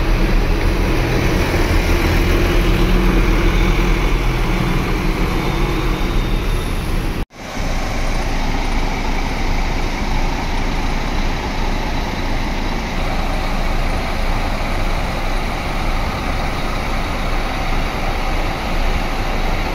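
Volvo B11R coach's 430 hp six-cylinder diesel engine running close by as the coach pulls away. After a sudden cut about seven seconds in, a steady wash of engine and traffic noise.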